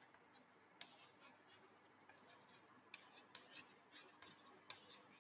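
Chalk writing on a blackboard: faint scratches and taps, one about a second in, then more frequent from about three seconds in.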